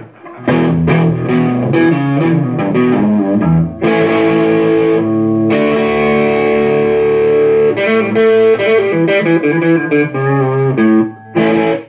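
Electric guitar played through a Fender Roc Pro 1000 combo amplifier on its overdriven tube drive channel, with a mix of picked single notes and held chords. The amp plays without crackling now that its cold solder joints on the power resistors have been reflowed.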